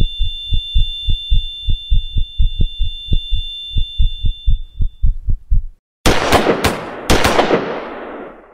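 A heartbeat sound effect, rapid low double thumps under a steady high-pitched ringing tone that stops about halfway. Just after a moment of silence, about five sharp gunshots ring out in quick succession and fade away.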